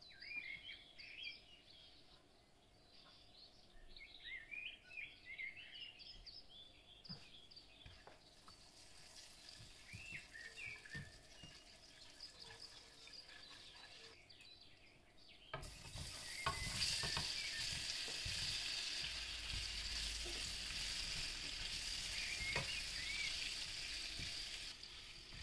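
Birds chirping at first, while oil and ghee in a frying pan begin to sizzle faintly. About halfway through, the sizzle jumps suddenly much louder as chicken livers go into the hot fat and frying in the pan, stirred with a spatula.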